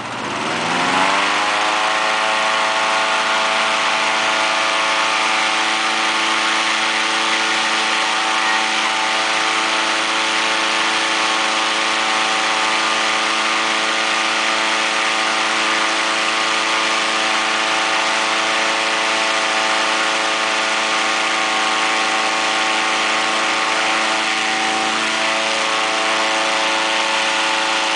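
Engine-driven inflator fan revving up in the first second or so, then running steadily at full speed, blowing cold air into a hot air balloon envelope during cold inflation.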